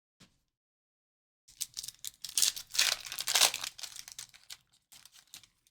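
A foil trading-card pack being torn open and its wrapper crinkled: a burst of crackling about three seconds long, loudest in the middle, with a few softer crinkles near the end.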